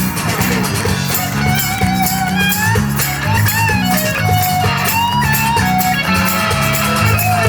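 A live band plays an instrumental break: a lead guitar solo of bending, sliding notes over a steady bass line and drum beat.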